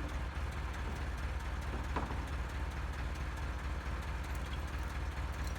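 An engine idling steadily with a low rumble, with a faint knock about two seconds in.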